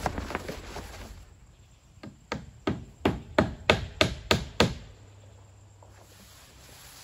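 Hammer driving nails through roofing underlayment into the plywood roof deck: about eight sharp blows, roughly three a second, starting about two seconds in and growing louder, after a brief rustle.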